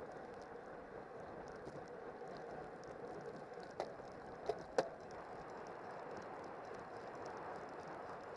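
Steady wind and road noise from a racing bicycle ridden at speed in a bunch, with three sharp clicks a little past the middle.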